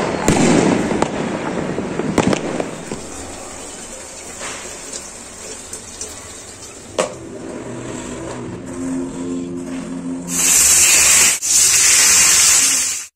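Fireworks banging and crackling in the first few seconds. About ten seconds in, whole fish frying in hot oil in a cast-iron pan give a loud, steady sizzle, with one brief break.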